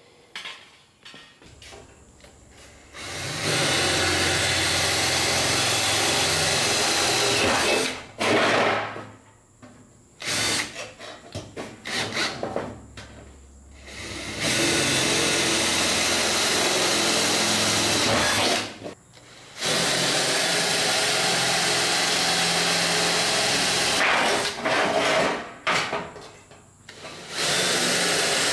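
Cordless drill running in four long bursts of several seconds each, drilling holes through a sheet-metal grill shell, with short knocks and clatter of the metal being handled between the bursts.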